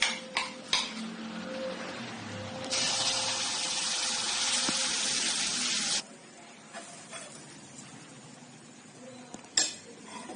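Chocolate pancake batter sizzling in a hot nonstick pan: a steady hiss for about three seconds that cuts off suddenly. There are a few clicks at the start and a sharp clink near the end.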